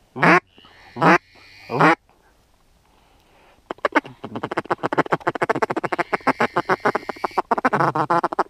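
Duck call blown close by: three loud drawn-out quacks in the first two seconds, then, after a pause, a long fast run of short clucking notes, about ten a second, broken briefly near the end. It is a hunter's hail-and-feed-chuckle sequence to draw in passing ducks.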